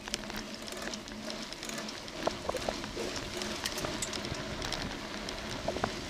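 Bicycle rolling along a tarmac path: steady tyre and wind noise with frequent small rattles and clicks.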